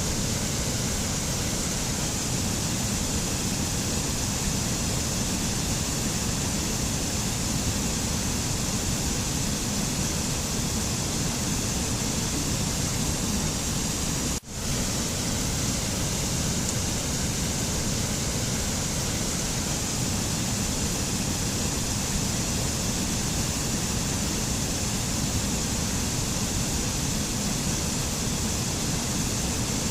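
Steady, even rushing noise with no music, dropping out for an instant about halfway through.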